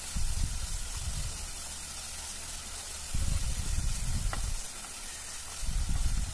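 Tomatoes, onions and whole spices sizzling in oil in a pressure cooker, salted so the tomatoes soften, while a wooden spatula stirs them. A steady sizzle runs throughout, with three louder stretches of low stirring noise, at the start, about halfway and near the end.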